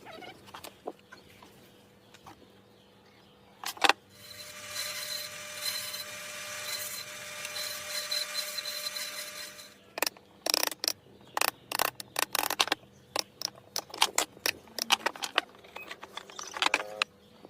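A small power tool's motor runs steadily for about six seconds, then a rapid series of sharp knocks and clicks follows.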